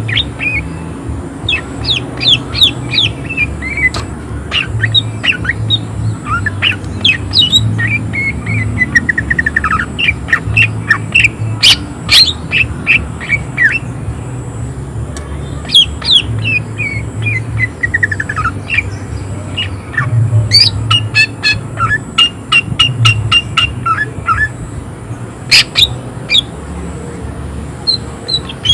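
Cucak ijo (green leafbird) singing loudly: rapid strings of sharp, harsh chirps broken by several falling runs of quick notes. A low hum runs underneath.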